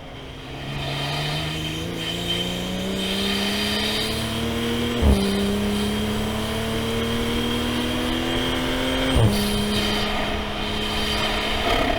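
Toyota GR Supra A90 engine pulling hard under acceleration, heard from inside the car. The pitch climbs steadily, drops with a sharp crack at an upshift about five seconds in, climbs again, and shifts up once more about nine seconds in.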